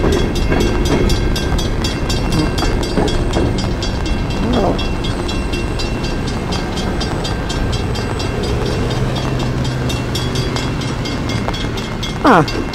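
Freight train of CSX coal hopper cars rolling past: a steady rumble with a rhythmic clicking of the wheels. A brief loud sound that slides in pitch near the end.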